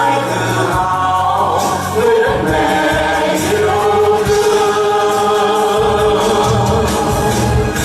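A group of voices singing together in chorus over backing music, with long held notes.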